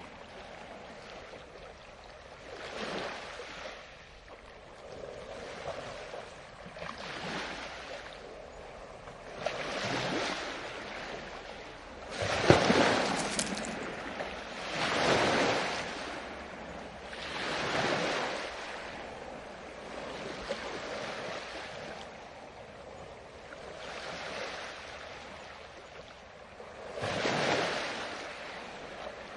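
Small waves washing onto a shore, one swell of rushing water every two to three seconds, the strongest a little under halfway through.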